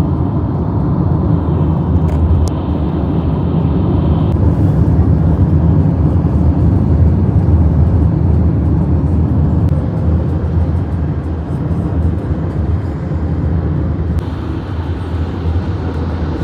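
Steady low rumble of a moving car, as heard from inside the cabin.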